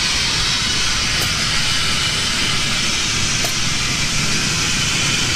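Steady hissing noise over a low rumble, with a faint click about every two and a half seconds.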